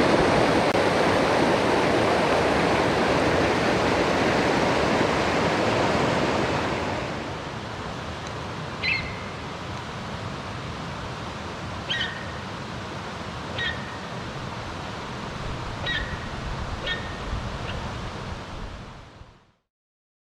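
Mountain stream water rushing, loud for the first seven seconds and then softer. Five or six short bird calls, each sliding down in pitch, sound over the water in the second half, and everything fades out near the end.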